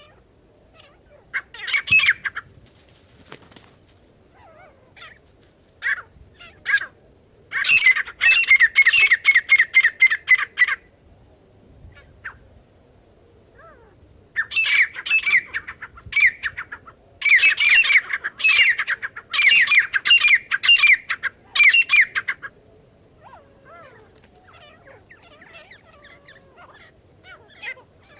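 Grey francolin (teetar) calling: harsh notes repeated quickly, about five a second, in several loud bouts of a few seconds each, with scattered single notes between.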